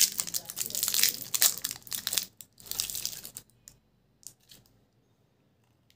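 Foil candy wrapper crinkling and tearing as a chocolate is unwrapped by hand: dense crinkling for about three and a half seconds, then a few separate soft crinkles before it stops.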